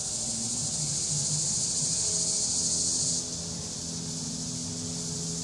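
Insects buzzing steadily in the summer woods. A louder high buzz swells and then cuts off suddenly about three seconds in.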